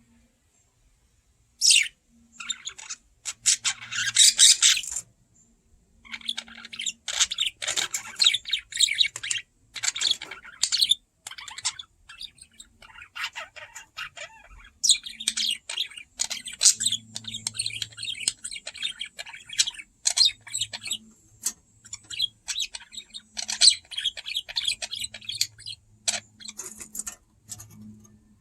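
Budgerigar chirping and chattering in quick high notes, starting about two seconds in and continuing with short pauses.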